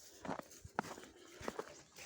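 Goats' hooves stepping about, a scatter of light, irregular knocks.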